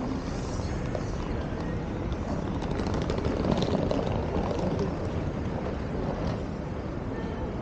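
City street traffic: a steady rumble of vehicles that swells about three to four seconds in, as something passes.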